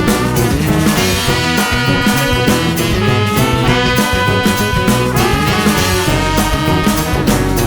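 Upbeat background music with brass and a steady beat, in a swing style.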